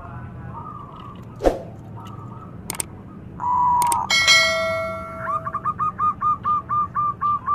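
Subscribe-button sound effect of mouse clicks and a ringing notification bell chime, followed by a zebra dove's fast run of short staccato coo notes, about five a second.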